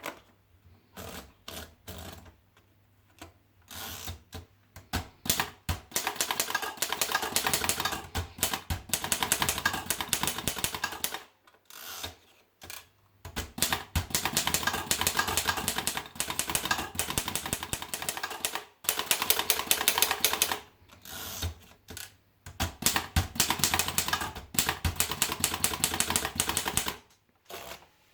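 Erika model 5 portable manual typewriter being typed on: rapid key strikes clacking in runs of several seconds, broken by short pauses and a few single strikes.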